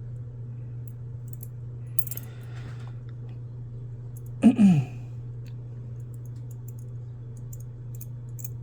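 Small metal lock-pick tension wrenches clicking and tinking lightly as they are handled. A short vocal exclamation with a falling pitch comes about halfway through. A steady low hum runs underneath.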